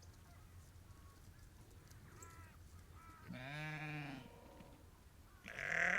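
Ewes and lambs bleating: a faint short call about two seconds in, a wavering bleat around three and a half seconds, then a louder bleat starting near the end.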